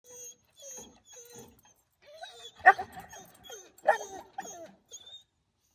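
Dog whining in high, drawn-out tones, then giving two louder short barks, each trailed by smaller whines. The owner says the dog is crying to go home.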